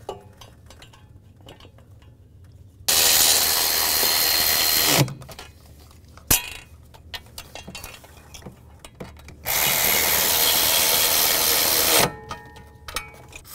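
A cordless power tool running two bolts down, one after the other, each run lasting about two seconds. There is a single sharp click between the two runs.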